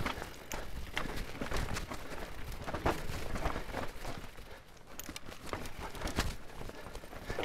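Mountain bike with coil-sprung suspension front and rear rolling fast down a rocky trail: irregular knocks and clatter of tyres and bike over rocks and roots, over a steady rush of tyre and wind noise. There is a brief lull about four and a half seconds in.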